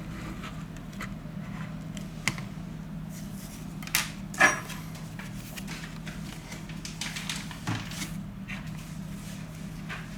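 Light clicks and taps of small repair tools and phone parts being handled on a workbench, the sharpest about four and a half seconds in, over a steady low hum.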